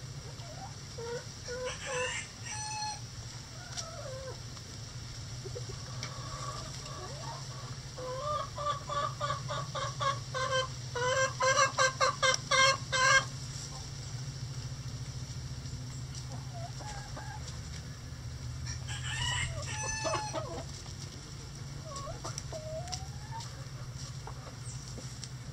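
Bantam chickens clucking and calling. From about eight seconds in, a run of quick clucks speeds up and grows loud, then breaks off around the middle; shorter calls come about two seconds in and again near twenty seconds, over a steady low hum.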